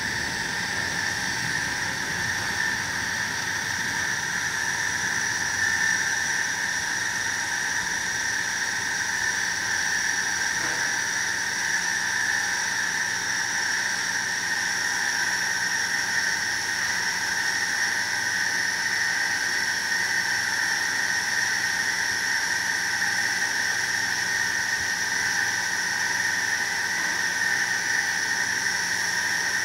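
Heavy rain falling, a steady rushing hiss with a constant high-pitched whine running through it.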